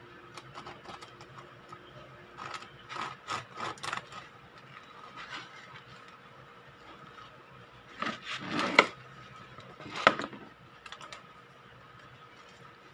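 Serrated bread knife sawing through the crisp crust of an oat and flaxseed sourdough loaf: bursts of crackly, rasping strokes, loudest about eight to ten seconds in.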